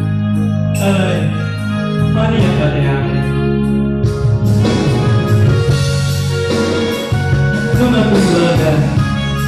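Men singing a Batak pop song live into microphones over amplified band accompaniment with a steady bass line.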